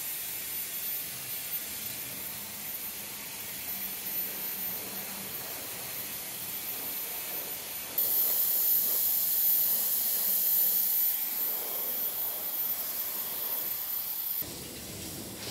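Handheld hair dryer blowing a steady hiss of air as it dries and shapes short hair. It jumps louder about halfway through and drops away sharply near the end.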